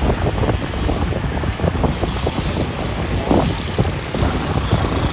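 Street traffic running steadily, with wind buffeting the microphone in an irregular low rumble and crackle.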